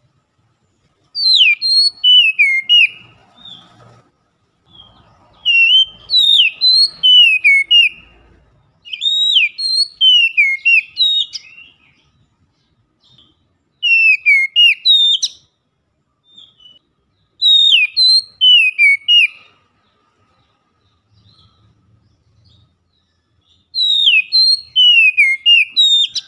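Oriental magpie-robin singing loudly, six bursts of clear whistled phrases with sharp falling notes, separated by short pauses.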